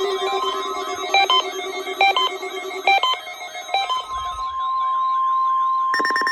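Weather-radio alert tones: a tangle of warbling electronic tones with four short beeps gives way about 4 seconds in to one steady tone, and near the end a loud, harsh buzzing burst of SAME alert data begins.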